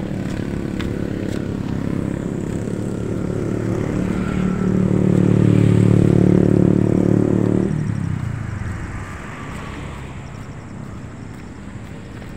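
Motorcycle engine running at a steady pitch, growing louder to a peak and then dropping away sharply about eight seconds in.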